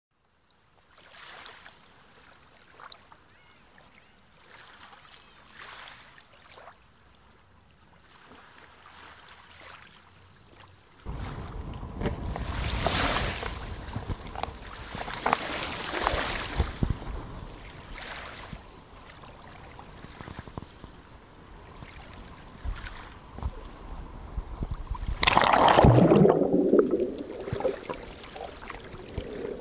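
Sea water sloshing and splashing around a spearfisher's camera at the surface, faint for the first ten seconds or so and much louder from about eleven seconds in. About twenty-five seconds in comes the loudest moment, a splash whose sound sinks in pitch as the camera goes under, followed by muffled underwater sound.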